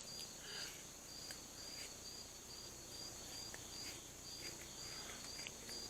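Crickets chirping steadily, about two or three chirps a second, over a faint high insect hiss. A few faint clicks come from the sharpened kitchen shears cutting cloth.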